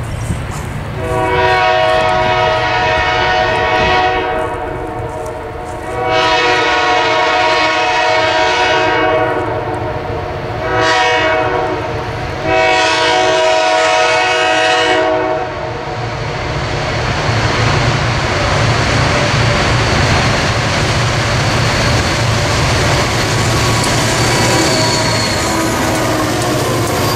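A Reading & Northern diesel freight locomotive's air horn sounds the grade-crossing signal: two long blasts, one short and one long. The six-unit EMD SD40-2/SD50 lashup then runs close by, its diesel engines and wheels on the rail growing louder, with a thin high wheel squeal near the end.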